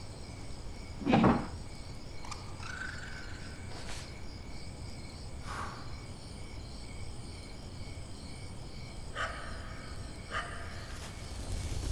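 Night ambience of crickets chirping steadily, with a short loud hit about a second in and a few brief higher calls later on.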